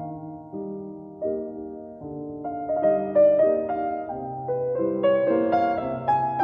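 Background piano music: struck chords with a melody over them, a new note or chord about every half second, each fading after it is struck.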